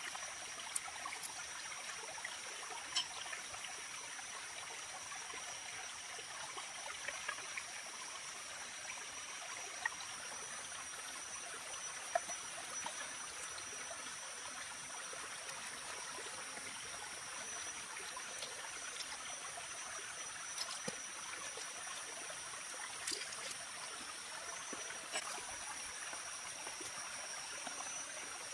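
Steady hissing wash like a running stream, with two thin high steady tones over it. About a dozen small sharp clicks scattered throughout, as wet raw squid are handled in a bamboo basket.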